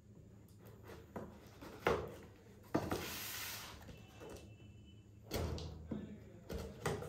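Packing tape being pulled off a large cardboard box and its flaps handled: a few sharp clicks, a tearing hiss about three seconds in lasting about a second, then several knocks and thumps of cardboard near the end.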